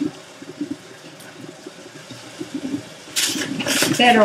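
Kitchen tap water running onto vegetables in a collapsible silicone colander in a sink as they are rinsed, with light clatter of the vegetables being handled. About three seconds in, the water splashes much louder for around a second.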